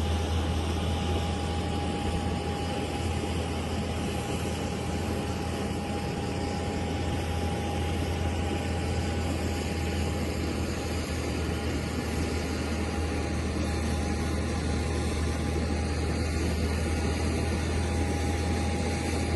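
Steady jet aircraft noise from a Boeing 737 standing on the apron with a tow tractor at its nose: a constant low hum with one steady whine above it.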